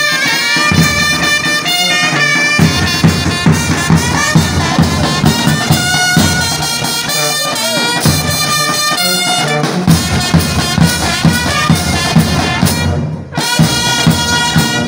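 Military brass band playing a march: trumpets and sousaphone carry the tune over a steady beat of bass drums. The music dips briefly near the end.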